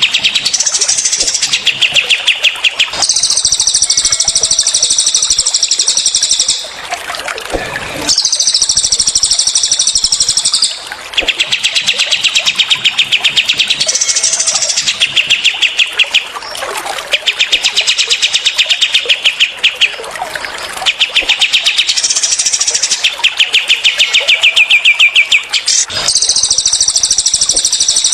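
Recorded cililin and kapas tembak birdsong played back to back: rapid-fire trills, each burst lasting one to three seconds, switching between a lower-pitched trill and a higher, shriller one. Faint trickling water runs underneath.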